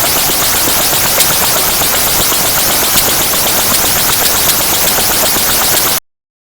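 Loud static hiss with a fast crackle of ticks running through it, part of an Emergency Alert System test audio, cutting off abruptly about six seconds in.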